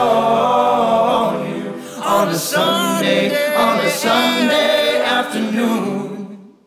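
Background music: a song with several layered singing voices and little bass, fading out near the end.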